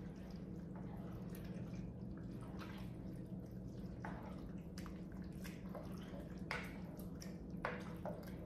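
A utensil stirring a thick, cheesy noodle-and-chicken mixture in an enamelled pot: faint, irregular wet squishes and soft scrapes over a steady low hum.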